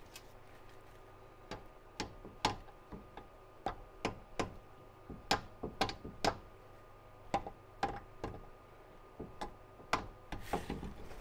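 Light blows of a soft-faced mallet on a crankshaft timing gear, driving it onto the crankshaft snout of a Chevy 350 small-block V8: a series of irregularly spaced sharp taps as the gear is worked on until it seats.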